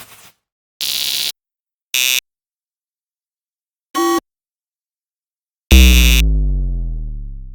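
A string of separate short editing sound effects with silent gaps between them: a half-second noisy burst, two brief buzzer-like blips, then the loudest, a sudden hit followed by a deep tone sliding down in pitch over about two seconds.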